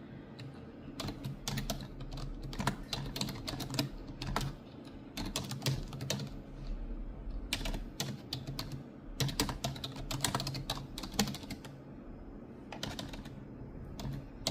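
Long fingernails clicking and tapping on a computer keyboard while typing, in quick runs of keystrokes broken by short pauses.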